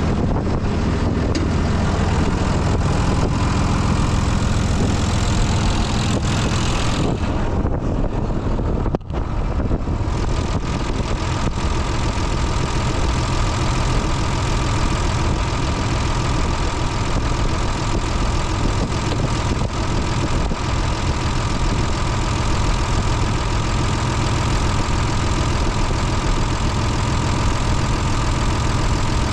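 John Deere 2940's six-cylinder diesel engine idling steadily, with a momentary dropout about nine seconds in.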